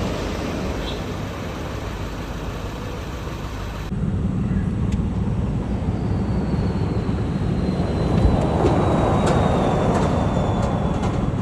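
Engine and road noise inside a moving vehicle: a steady low rumble that swells louder near the end, with a faint falling whine over its last few seconds.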